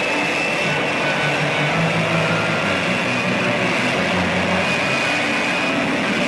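Lockheed Martin F-35B hovering in vertical-landing mode, its F135 jet engine and shaft-driven lift fan running: a steady jet rush with a thin high whine over it.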